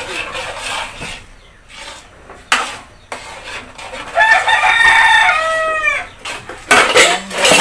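A rooster crowing once: a long call about four seconds in that bends down in pitch as it ends. Before it, a few sharp knocks of a spatula stirring in a metal wok.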